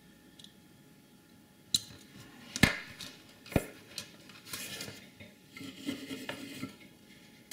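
Hard tools being handled and set down on a workbench: three sharp clacks about a second apart, the second the loudest, then a couple of seconds of light clattering and scraping.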